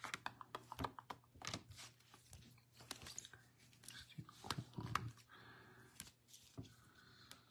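Clear plastic card holders and sleeved trading cards clicking and rustling against each other as they are handled and sorted by hand: a scatter of light clicks and scrapes.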